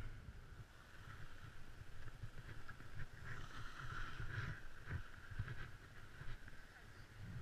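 Muffled low rumbling and scraping of movement on snow, picked up by a body-worn action camera, with a couple of sharp knocks about five seconds in.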